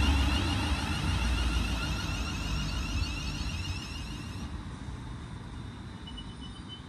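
Electric multiple-unit passenger train running past and away along the platform, its low rumble fading steadily. A high whine above the rumble stops about four and a half seconds in.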